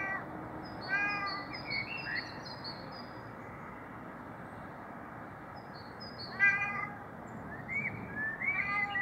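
Siamese cat meowing: several short meows, the loudest about six and a half seconds in, and a rising one near the end.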